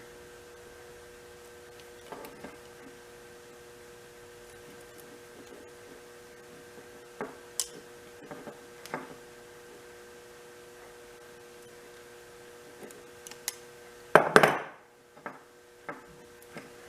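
Sparse small clicks and clinks of hand tools working on electrical wire ends, with a louder clatter about 14 seconds in, over a faint steady electrical hum.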